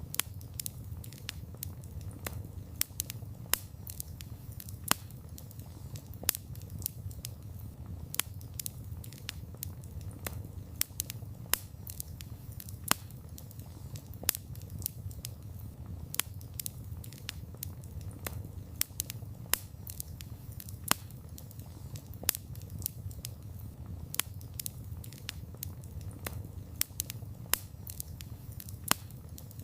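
Wood fire crackling with frequent irregular snaps and occasional louder pops over a steady low rumble of the burning.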